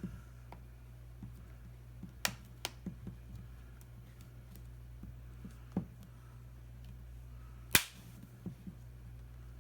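Sharp clicks and snaps, a few single ones spread out with the loudest near the end, as a replacement touchscreen glass is pressed down around the edges of a tablet and seats into place.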